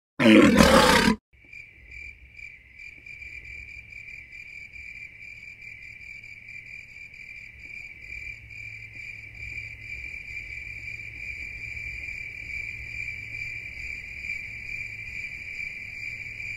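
Crickets chirping in a steady, pulsing chorus that grows slightly louder, after a loud burst of sound that cuts off suddenly about a second in.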